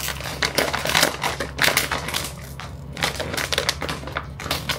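Crisp packet crinkling and crackling as it is handled, a quick run of irregular rustles with a short lull a little past the middle.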